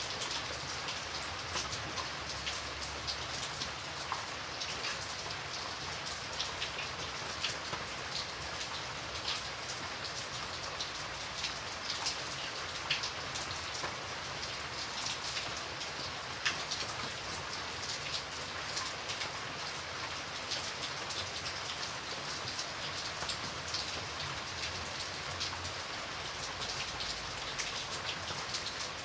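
Steady rain falling, with a constant hiss and many individual raindrops ticking sharply against a surface.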